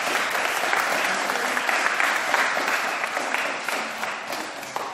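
Applause: many hands clapping together, thinning out and getting quieter near the end.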